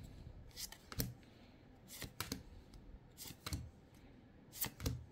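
Trading cards being slid one by one from the front of a hand-held stack to the back. Each move gives a quick pair of light swishes and snaps of card stock, four times at about one every second and a quarter.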